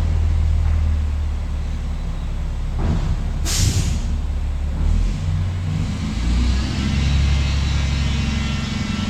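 Garbage truck's diesel engine running low and steady, with a short, sharp air-brake hiss about three and a half seconds in. Near the end the engine picks up with a faint rising whine.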